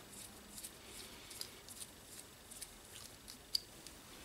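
Faint, scattered small clicks and ticks of hands handling and fitting a plastic servo horn onto an RC steering servo, with one sharper click about three and a half seconds in.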